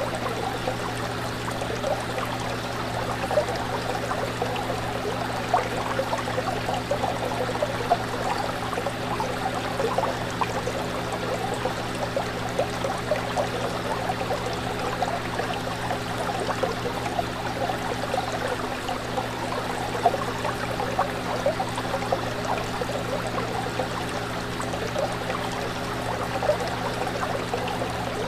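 Fish tank water bubbling and trickling steadily over a constant low hum, with a few brief louder splashes.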